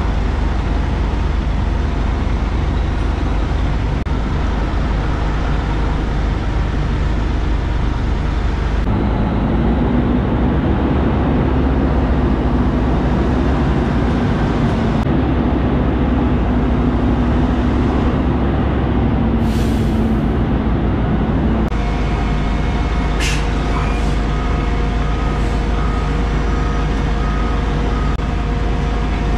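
Cummins diesel of a Kenworth K200 cabover running at low revs while reversing a double set of trailers. The revs come up about nine seconds in and drop back a little after twenty seconds. There are short hisses of air from the brakes around then, and a run of short beeps near the end.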